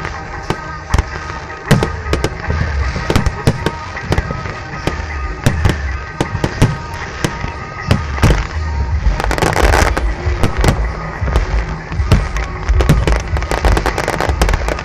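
Aerial firework shells bursting in a rapid, irregular string of sharp bangs and low booms. There is a hissing crackle about nine and a half seconds in, and the bangs come thicker toward the end.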